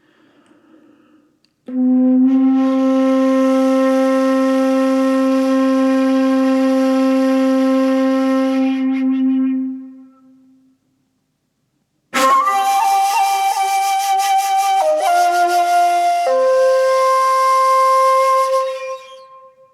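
A solo wind instrument plays a slow melody: one long low note held for about eight seconds, a pause, then a short phrase of a few notes that fades out near the end.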